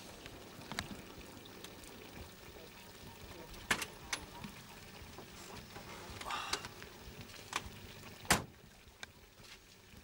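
Steady background noise with several sharp clicks, the loudest about eight seconds in, and a short rustling burst near the middle.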